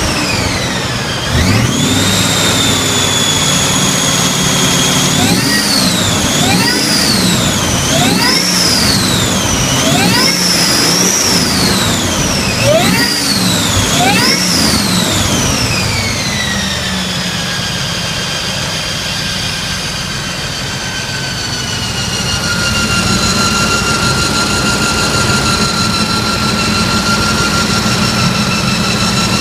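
Vehicle engine being revved several times, with a high-pitched whine that rises and falls with the revs, then glides down and holds a steady pitch as the engine returns to idle. The whine is an unexplained noise that tracks engine speed.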